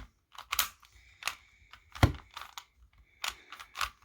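Rubik's brand 3x3 cube being scrambled by hand: the plastic layers turn with quick irregular clicks and clacks, with one louder clack about two seconds in.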